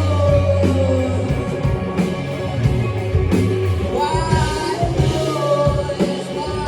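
Live band music: a singer holds long, gliding notes over a steady bass line and drums.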